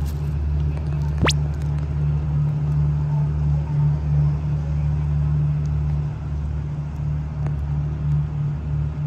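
Steady low rumble of an idling engine, with a brief rising swish about a second in.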